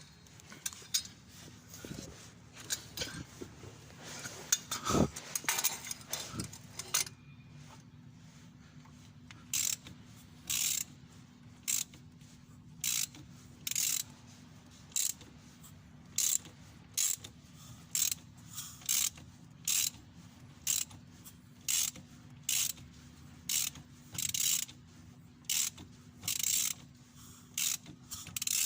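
Hand ratchet wrench worked in steady strokes, each stroke a short burst of ratchet clicks, about one a second. Before that come a few seconds of irregular clanks and clicks of tools.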